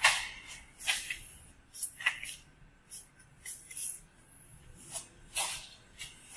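Hand trigger spray bottle squirting thinner onto a painted steel tailgate to soften leftover vinyl-wrap adhesive: a string of short, sharp hisses at an uneven pace, about one or two a second.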